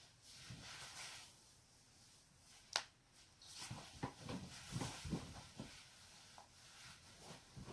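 One sharp neck-joint crack about three seconds in, set among rustling and rubbing of skin and clothing as the neck is twisted. A run of softer knocks and rubbing follows.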